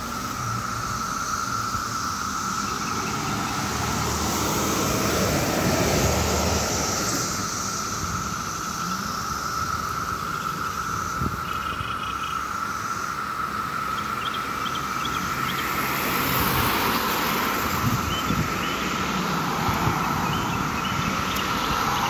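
Massed chorus of Brood X 17-year periodical cicadas: a loud, steady buzz held on one pitch. Passing cars swell and fade over it twice, about six seconds in and again near the end.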